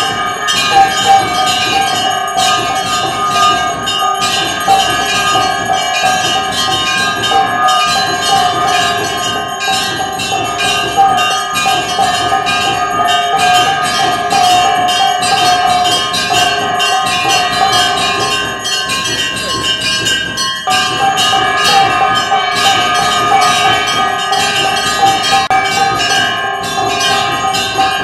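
Puja bell (ghanta) rung rapidly and without pause, a dense metallic clanging over a steady ring. The ringing falters for a couple of seconds about two-thirds of the way through, then resumes.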